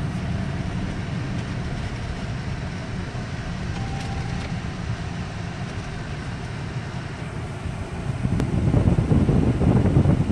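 Cabin noise of a moving car: a steady low road and engine rumble, swelling into a louder, rougher rush for the last two seconds or so.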